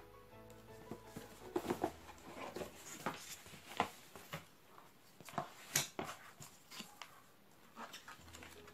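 Rigid cardboard album boxes being handled: scattered taps, knocks and rustles as boxes are turned over, set down and a lid lifted, with the sharpest knocks near the middle.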